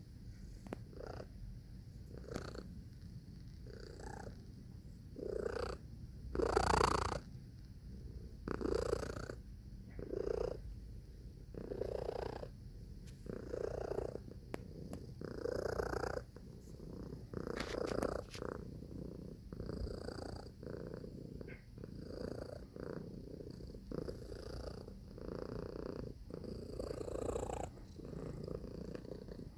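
Domestic cat purring: a steady low rumble that swells louder about every two seconds.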